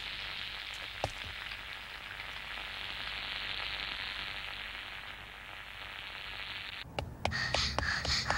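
Steady sizzling hiss of the defeated monster's smoking body, with one sharp click about a second in. Near the end it cuts sharply to quick running footsteps over music.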